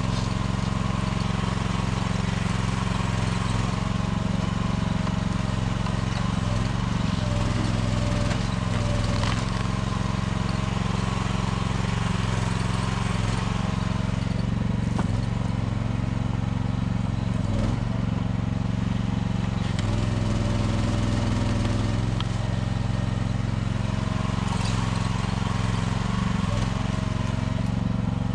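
Small mini excavator engine running steadily under work, with a higher whine that comes and goes a few times over it.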